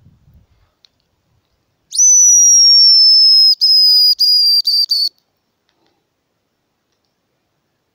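A homemade hazel grouse call is blown, giving a high, thin whistle. One long note glides slowly downward, then breaks into a few short notes, imitating the hazel grouse's song to lure the bird.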